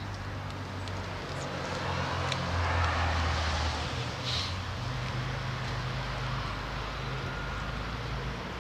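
Road traffic: a car engine's low hum with tyre noise, swelling briefly about three seconds in.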